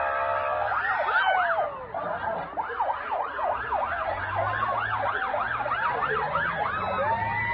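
Several vehicle sirens sounding together, each sweeping quickly up and down in pitch. A steady tone holds for the first second before the sweeping takes over.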